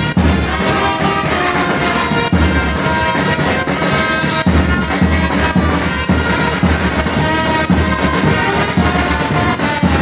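Brass band playing: trumpets carrying a melody over percussion keeping a steady beat.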